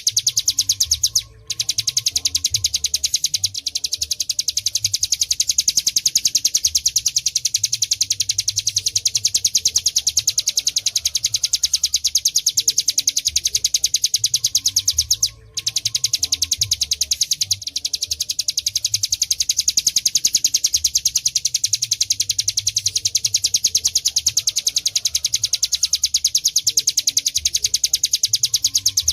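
Ciblek gunung (a prinia) singing a continuous rapid, buzzing trill in the 'ngebren' style. The trill breaks off briefly about a second in and again about halfway through.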